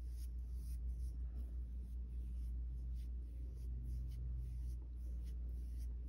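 Flat paintbrush stroking glaze across the curved painted surface of an overturned bowl: soft, scratchy brush strokes repeating evenly, several a second, over a low steady hum.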